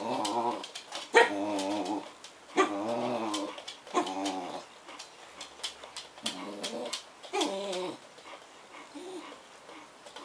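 A Bedlington terrier making funny whining, grumbling vocal noises: about six short bouts, each under a second long and wavering in pitch, with pauses between them.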